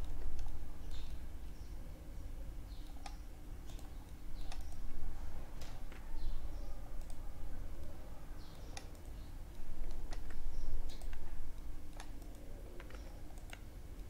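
Computer keyboard keystrokes and mouse clicks, a scattered, irregular run of sharp clicks, over a steady low hum.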